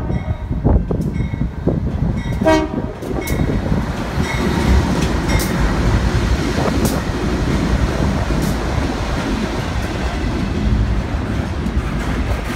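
BNSF freight diesel locomotives sounding the horn, one blast ending at the start and another short blast about two and a half seconds in, then the locomotives and double-stack intermodal container cars passing close by with a loud, steady rumble and scattered clicks from the wheels on the rails.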